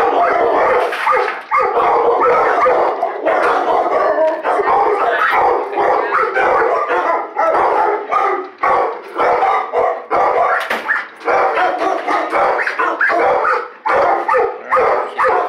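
Several shelter dogs barking at once, a loud, continuous din without letup.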